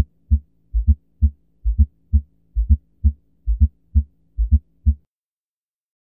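Recorded heart sounds with a fourth heart sound (S4, atrial gallop): in each beat a low soft thud comes just before the first heart sound, followed by the second, three low thuds per beat at a little faster than one beat a second, stopping about five seconds in. The extra sound comes from atrial contraction forcing blood into a stiff, non-compliant ventricle.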